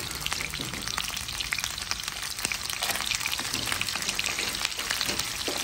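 Freshwater crabs frying in hot lard in a pot: a steady sizzle with many small crackles and pops of spitting fat.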